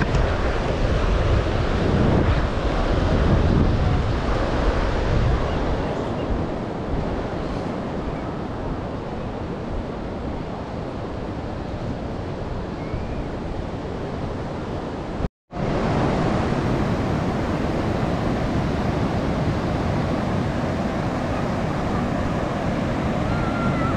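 Ocean surf washing steadily, with wind buffeting the microphone, heaviest in the first few seconds. The sound drops out for an instant about two-thirds of the way through.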